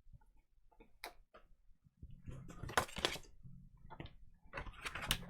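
Light handling noises: a few small ticks, then faint rustling of paper and packaging being handled, in two short stretches.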